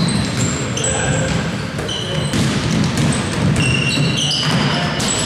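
Basketball game play: sneakers squeaking repeatedly on the court and a basketball bouncing, over steady gym noise.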